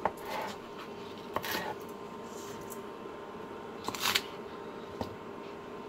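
Chef's knife slicing green onion on a plastic cutting board: a handful of sharp, irregular taps of the blade on the board, two of them close together about four seconds in.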